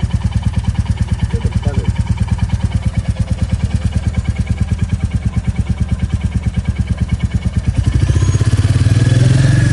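Royal Enfield Classic 350's single-cylinder engine idling with an even, rapid beat, growing louder about eight seconds in.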